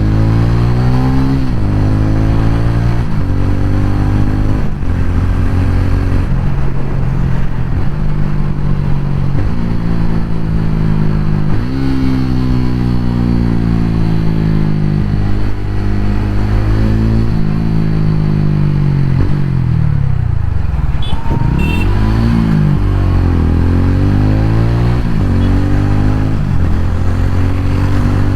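TVS Ronin 225's single-cylinder engine pulling through the gears. Its pitch rises in each gear and drops sharply at each upshift. About twenty seconds in the engine note falls away as the bike slows, then climbs again as it picks up speed.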